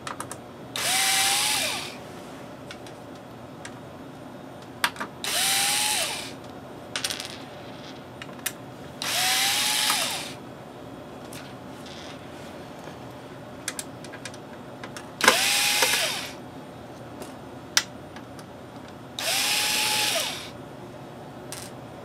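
Cordless electric screwdriver run in five short bursts of about a second each, each spinning up with a short rising whine as it backs screws out of the computer's metal chassis. Small clicks and taps between the bursts.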